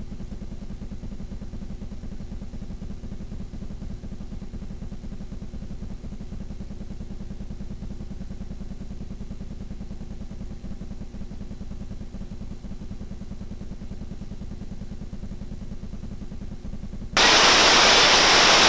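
A dull, steady low rumble with all the higher sound cut away, as if the rapids had dropped out. About seventeen seconds in, the loud rushing of whitewater river rapids cuts back in abruptly.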